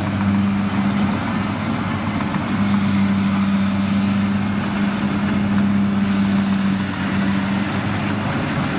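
Farm tractor's diesel engine running steadily at high revs under load, the tractor bogged down in mud.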